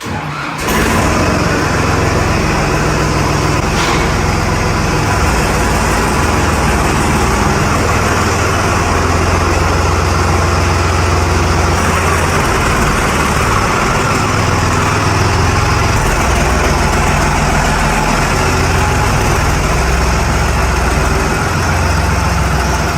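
Tractor engine running steadily and loudly with a deep rumble, coming in abruptly about half a second in.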